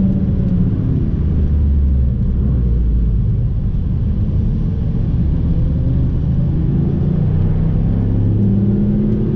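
Toyota Yaris engine and road rumble heard from inside the cabin while it is driven hard. The engine note shifts up and down in steps several times, with throttle and gear changes.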